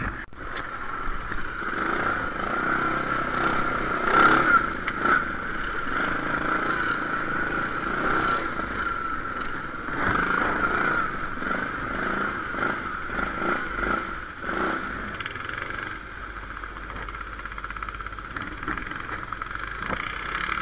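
ATV engine running with a steady high whine, with scattered knocks and rattles throughout.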